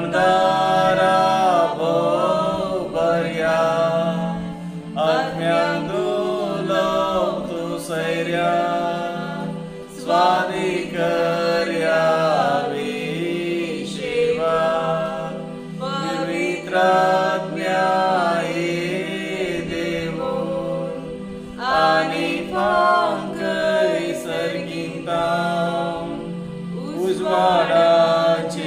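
A man singing a slow Konkani devotional hymn, holding long notes in short phrases, over a steady low drone.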